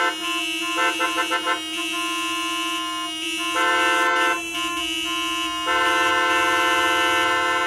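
Car horns honking in a traffic jam: one horn held steadily under the others, a quick run of about five short toots about a second in, then long blasts near the middle and from about six seconds on.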